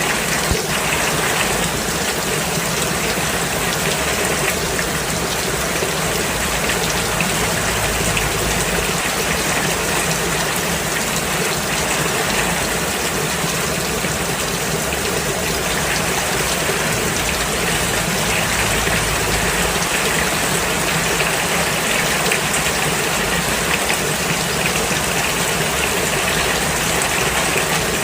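Steady heavy rain falling, a continuous even hiss without breaks.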